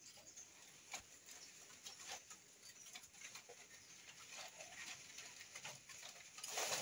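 Faint outdoor ambience: scattered light clicks and rustles with a bird calling, and a louder, noisy rustle near the end.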